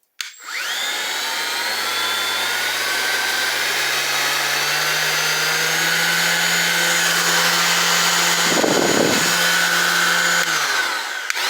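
Milwaukee M18 cordless random orbit sander running free. Its motor hum climbs in pitch over the first few seconds, then holds steady, with a short rough burst about three-quarters of the way through. Near the end it is switched off and winds down within about a second, then is briefly started and stopped again.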